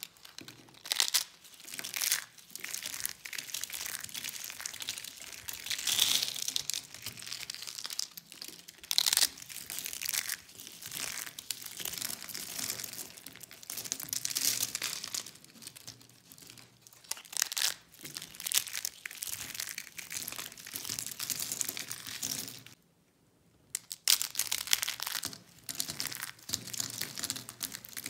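Thin slices of dried bar soap crunching and snapping as they are crushed by hand into flakes, in repeated crackly bursts of uneven loudness. A second of silence breaks it a little before the end.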